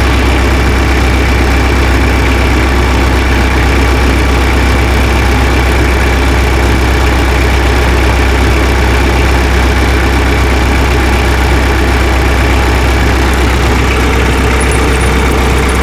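Tractor engine idling steadily, a constant low hum.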